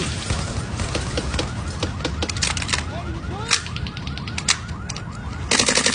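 A repeating electronic chirping tone, like a car alarm, runs throughout under scattered sharp clicks. A loud rapid burst of clattering starts near the end.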